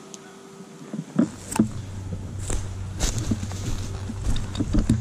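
Footsteps crunching through dry leaf litter and twigs on a forest floor, in an irregular run of steps. About a second in, a low rumble on the microphone sets in and stays as the pace picks up.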